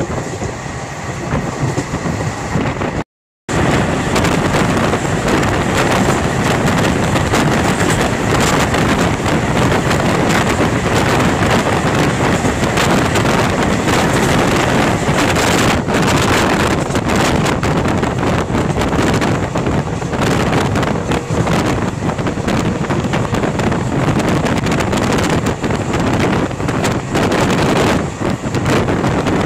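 Running noise of a moving passenger train heard from an open door or window: wheels on the rails and rushing air, with wind on the microphone. The sound cuts out briefly about three seconds in. Partway through, a freight train's wagons rush past close alongside.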